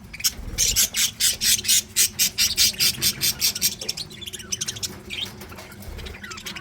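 Budgerigars chattering: a fast run of short, high chirps and squawks, busiest in the first few seconds and thinning out toward the end.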